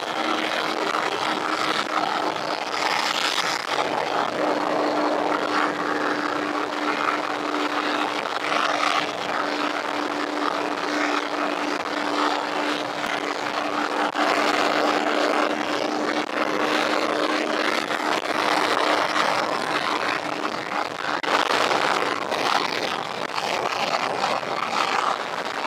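Modified Yamaha FZ150i single-cylinder four-stroke, bored to 63 mm, cruising at highway speed with a steady engine drone, heavily mixed with wind rushing over the microphone and tyre noise.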